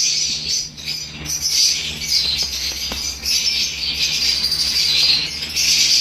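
Caged parrots chattering and chirping in high, overlapping calls, with a couple of faint clicks.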